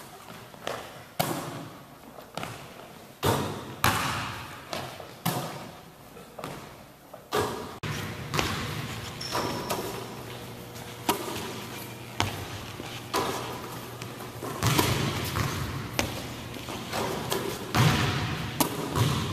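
Basketballs bouncing on a gym floor: irregular single thumps, a few a second at times, each with a short echo of a large hall.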